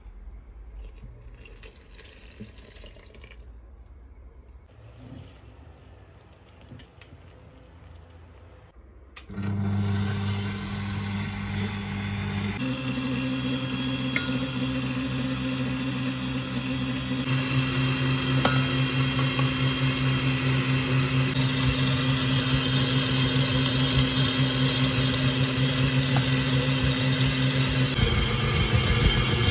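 Liquid poured into a steel bowl of flour, then a Kenwood kMix stand mixer switches on about nine seconds in and runs with a steady hum, kneading dough. Its pitch steps up about three seconds after it starts, as the speed is raised.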